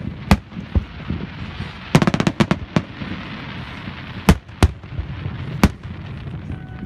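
Aerial firework shells bursting: separate sharp bangs, then a rapid string of about ten cracks around two seconds in, then more single bangs, over a crackling hiss.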